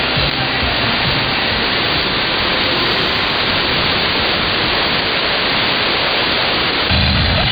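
Loud, steady hiss of static over a shortwave AM signal, filling the receiver's audio band with no music or voice, and a little low rumble creeping in near the end.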